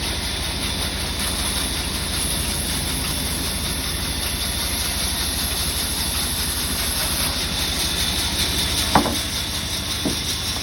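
Large sawmill saw machinery running steadily with a hissing, low pulsing drone. A sharp knock comes about nine seconds in, and a lighter one a second later.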